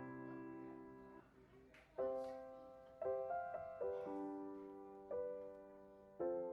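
Background piano music: slow chords struck about once a second, each ringing and dying away.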